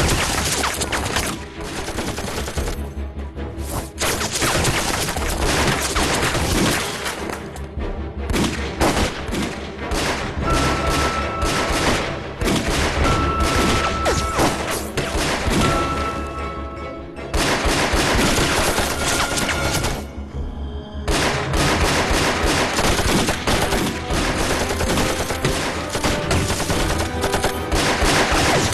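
Sustained heavy gunfire, rapid shots and machine-gun bursts, over a dramatic background music score. The fire has brief lulls about 3, 8, 17 and 20 seconds in.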